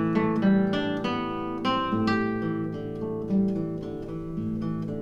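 Instrumental background music: plucked notes in a flowing run over held low notes.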